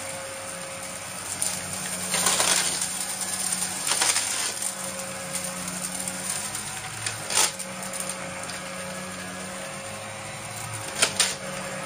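Upright bagless vacuum cleaner running on carpet with a steady motor hum and airflow hiss. It is broken by sharp crackles and rattles as bits of debris are sucked up into the clear canister: a few between two and four seconds in, one about seven seconds in, and a quick pair near the end.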